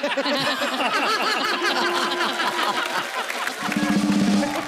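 Studio audience laughing and clapping, many voices at once. A steady low tone joins in near the end.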